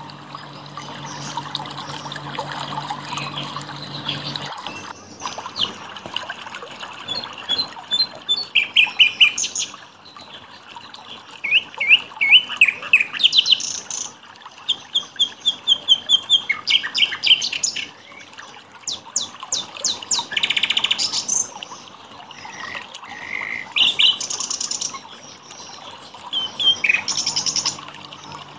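Several songbirds singing over one another, with fast trills, repeated chirps and clear whistled phrases following one after another, over gently splashing water. A low steady hum sounds underneath for the first four seconds or so, then stops.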